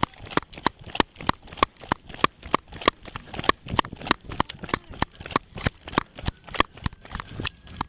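Running footsteps of a police officer on pavement, picked up by his body-worn camera: quick, even footfalls, about three a second.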